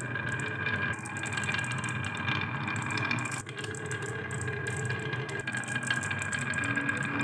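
Glass marbles rolling down a wavy groove in a wooden slope: a steady rolling rumble with many small clicks as they knock against the wood and each other.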